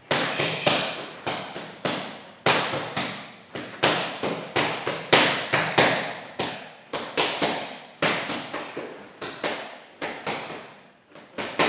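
Boxing gloves striking focus mitts in a steady run of sharp smacks, about two or three a second and often in quick combinations, each with a short room echo.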